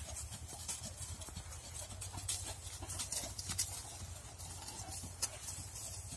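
Donkey's hooves trotting on soft, leaf-strewn sandy ground: an irregular run of muffled thuds and clicks over a low steady rumble.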